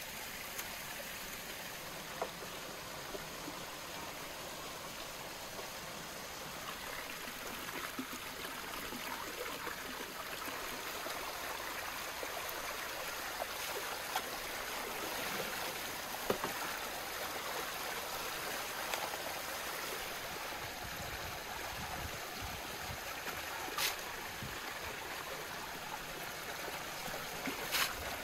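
Stream water pouring and splashing steadily into a plastic tub of live crayfish, with a couple of sharp knocks near the end as a metal skimmer scoops them out.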